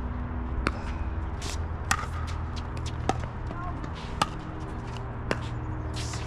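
Pickleball rally: paddles strike the hard plastic ball in five sharp pops, about one a second. A steady low hum runs underneath.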